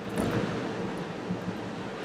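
Steady road and engine noise inside a moving car's cabin.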